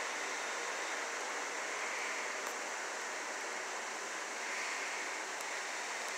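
Steady, even hiss-like noise with no music or voices.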